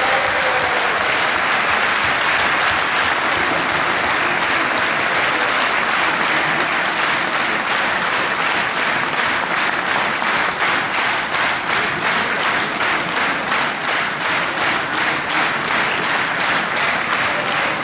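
Large indoor audience applauding. About halfway through, the clapping falls into a rhythmic unison beat of about three claps a second.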